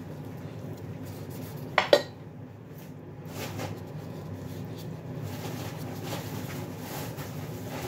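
A metal spoon clinking sharply twice in quick succession about two seconds in, over a steady low hum.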